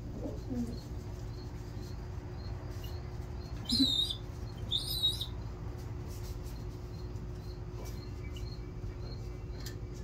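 Young racing homer pigeon calling: a brief low coo at the start, then two short, loud, high squeaky calls about four and five seconds in, over a steady low hum.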